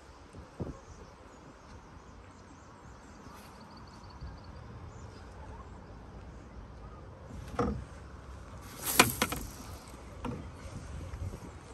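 Low steady wind-and-water rumble in an aluminium canoe, with a few sharp knocks and clicks about two-thirds of the way in, the loudest near the end, as fishing gear and the boat are handled.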